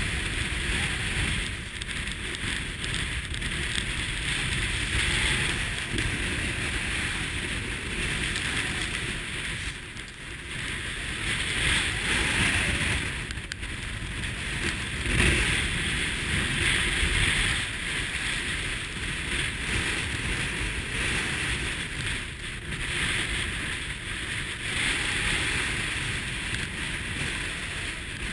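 Wind buffeting the microphone over the rush and splash of water along the hull of a sailing yacht driving hard through heavy seas. The noise swells and eases every few seconds as gusts and waves hit.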